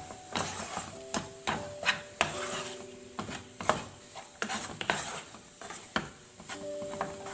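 A spoon scraping and knocking against the pan, in irregular strokes about once or twice a second, as a thick moong dal and milk mixture is stirred while the milk cooks down.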